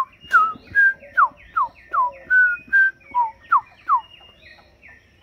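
Birds singing: a fast run of loud, clear, downward-slurred whistled notes, about two or three a second, over fainter higher calls. The whistling stops about four seconds in.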